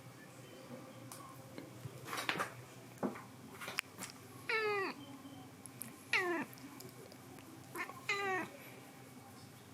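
Domestic cat meowing three times, each meow short and falling in pitch, with a few light clicks and rustles just before the first.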